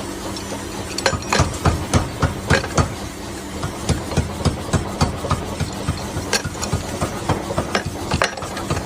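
Rapid knocks or hammer-like strikes, about four a second and fairly regular, over a steady machine hum.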